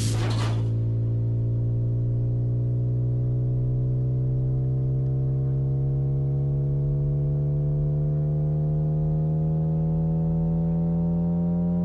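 Synthesized engine tone of an animated gear-driven car: a steady buzzing hum with many overtones, slowly rising in pitch as the engine revs climb in high gear just after an upshift. A brief hiss at the very start.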